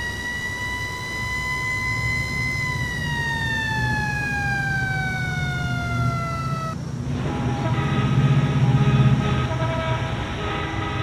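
A siren's long, single pitched tone, slowly rising and then gliding down. It cuts off abruptly about seven seconds in and gives way to a low rumble with faint steady tones.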